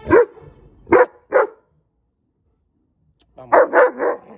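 Akita barking in play: three short barks, a pause of about two seconds, then three more in quick succession.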